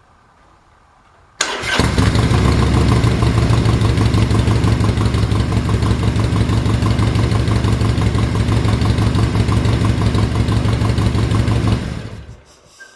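2013 Harley-Davidson Sportster Forty-Eight's 1200 cc V-twin starting quickly about a second and a half in, idling steadily for about ten seconds, then switched off and dying away. This is its first run on a newly fitted Joker Machine air cleaner and a freshly flashed tune.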